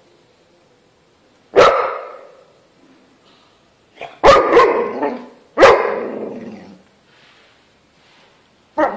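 A dog barking in loud single barks, four or five of them spaced a second or more apart, each trailing off slowly.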